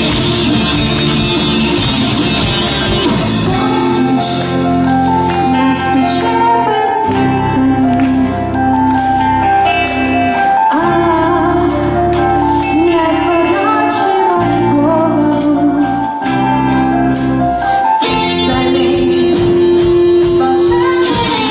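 A band playing a song: guitars over bass and drums, with a woman singing long held notes.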